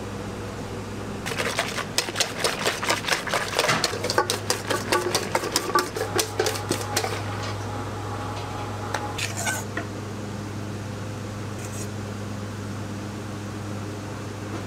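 Electric mixer whipping cream in a stainless steel bowl: a steady motor hum, with a rapid clatter of the whisk against the metal bowl through the first half, then the hum alone.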